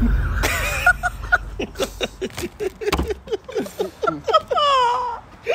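Several young men laughing hard in quick short bursts, with a long falling vocal cry near the end. A loud low rumble sounds as it begins.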